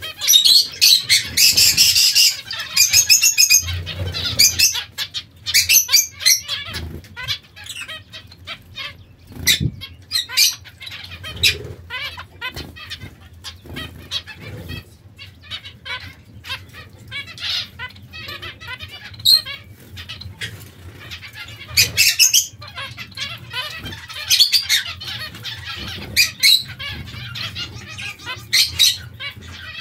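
Zebra finches bathing in a shallow water dish: repeated short splashes and wing flutters as they dip in, mixed with frequent high calls from the flock.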